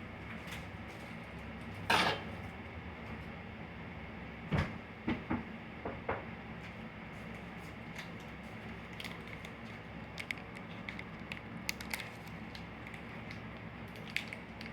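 Handling noises: a sharp knock about two seconds in, a few more knocks and clatters a couple of seconds later, then a run of faint light ticks and crinkles.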